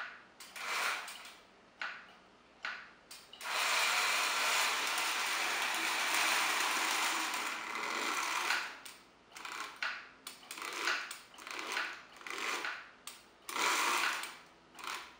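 Lionel O-gauge steam locomotive running on three-rail tinplate track under DC power, its motor, gears and wheels making a mechanical whirr. It moves in short spurts for the first few seconds, runs steadily for about five seconds, then goes in short stop-start spurts again as it is inched into position.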